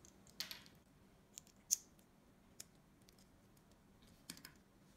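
Small plastic building bricks clicking as they are handled and pressed together: a few scattered sharp clicks, with a short cluster about half a second in, the loudest click near two seconds, and another short cluster near the end.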